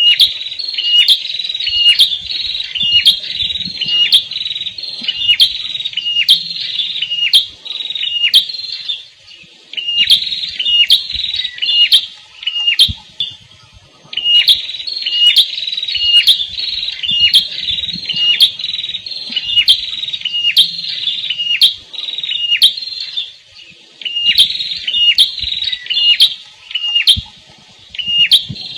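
Prenjak kepala merah, a small Indonesian prinia-type songbird, singing loudly: sharp, high chirps repeated about twice a second, in bouts of several seconds broken by short pauses.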